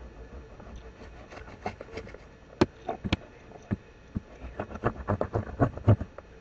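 Irregular taps and clicks from drawing an outline on a cardboard box, sparse at first, then a quick run of strokes near the end.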